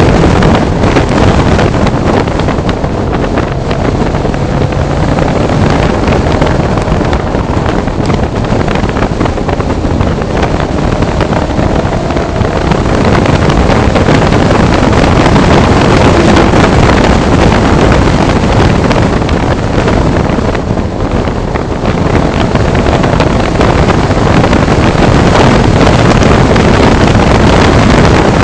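Heavy wind noise on the microphone of a twin-turbo Nissan 300ZX (Z32) driven at speed, with the 3.0-litre twin-turbo V6 faintly rising and falling in pitch underneath.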